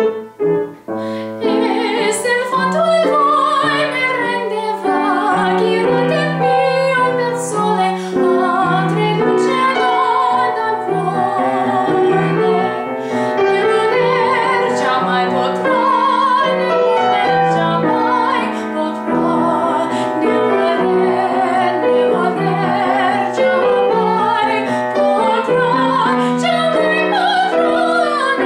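A woman singing a Baroque Italian aria in trained classical style, with vibrato, accompanied by piano. The piano plays alone briefly and the voice comes in about two seconds in.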